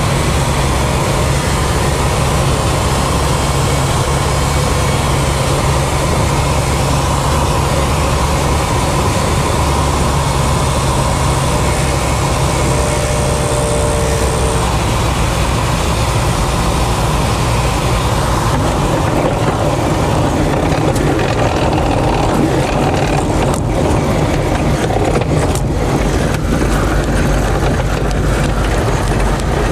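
Shark ultralight aircraft's engine and propeller running steadily at low power with airflow hiss, heard inside the cockpit on approach to a grass strip. About two-thirds of the way in the hiss drops and irregular knocks set in as the wheels roll on the grass after touchdown; a brief tone sounds about halfway.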